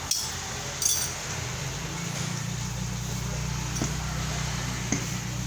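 Sharp metallic clinks of tools and compressor parts being handled: two near the start, the second the loudest, then two lighter ones later. A steady low hum sets in about two seconds in.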